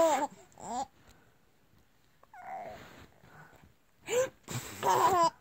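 A young baby cooing and squealing in a few short, high-pitched sounds with quiet gaps between, the loudest near the end.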